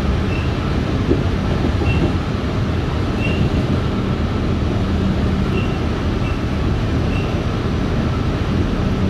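New York City subway train running along the Rockaway line, heard from inside the car: a steady rumble with a low motor hum that swells for a few seconds in the middle and again near the end. Faint short high squeaks come at irregular intervals.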